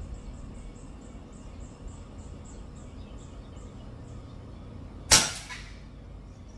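A single shot from a Greyhound Leviathan air rifle firing a mini slug, about five seconds in: one sharp, loud crack that dies away over about half a second.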